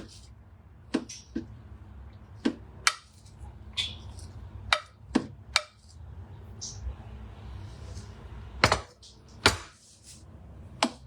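A spatula knocking and scraping against a pan while fried rice is stirred and mixed, giving irregular sharp clacks, a few of them much louder, over a steady low hum.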